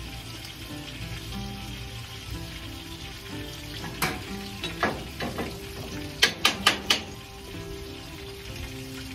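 Chicken frying in a cast-iron skillet, sizzling steadily. A run of sharp knocks comes through the middle, ending in four quick, loud ones.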